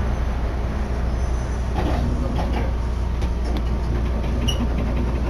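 Tokyo Monorail car running, a steady low rumble heard from inside the cabin, with a few faint knocks in the middle and a brief high chirp near the end.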